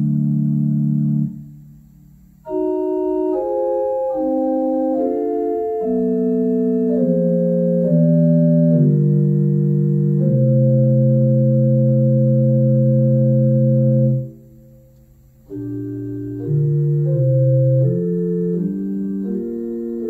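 Organ playing a slow hymn in held chords of several voices, the chords moving step by step, with two short breaks between phrases, one near the start and one about two-thirds through.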